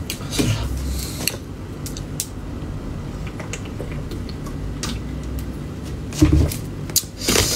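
Plastic water bottle creaking and clicking as it is drunk from, over a steady low hum. A brief vocal sound comes about six seconds in, and a burst of rustling near the end.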